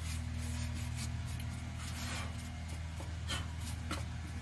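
Boiled linseed oil being rubbed onto a black walnut bowl: irregular, hissy rubbing strokes on the wood over a steady low hum.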